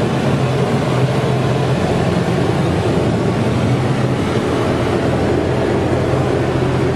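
Automatic car wash running over the car, heard from inside the cabin: a steady rush of water spray beating on the windows and body over a constant low machinery hum.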